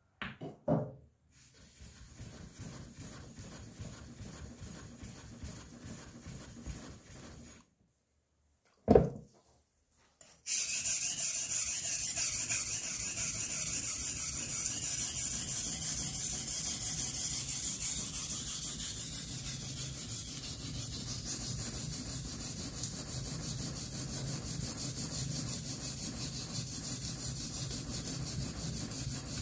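Kitchen knife blade being ground on a sharpening stone in quick back-and-forth scraping strokes. The strokes are faint at first. A single knock comes about nine seconds in, and from about ten seconds in the scraping is loud and continuous.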